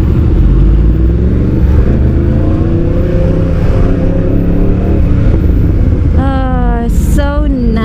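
Yamaha MT-10's crossplane inline-four engine with a Termignoni exhaust accelerating, its pitch climbing over the first few seconds and then holding steady.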